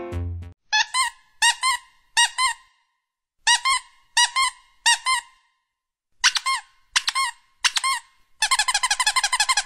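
Short high-pitched squeaks in twos and threes as a finger presses an alpaca's nose, each rising and falling in pitch. Near the end they run together into a fast, even string of squeaks.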